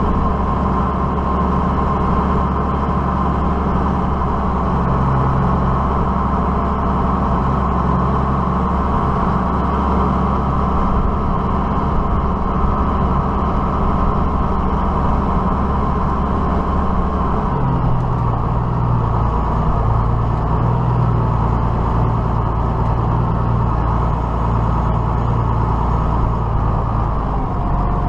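Diesel tractor engine running steadily under work, its note shifting about two-thirds of the way through.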